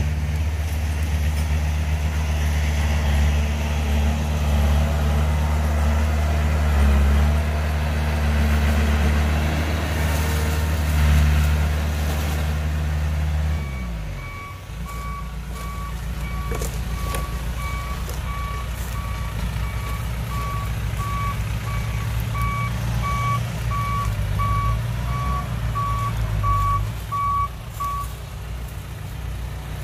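A dump truck's diesel engine runs steadily for the first half, and its note falls away about halfway through. Then a reversing alarm beeps at an even rate over the lower rumble of a small bulldozer's engine, and the beeping stops near the end.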